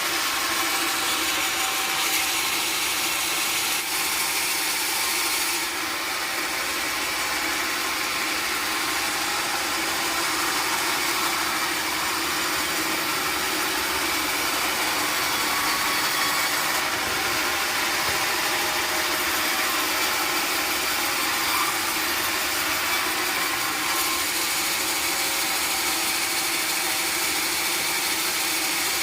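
Sawmill machinery running steadily, a saw cutting through wood, with no breaks or changes.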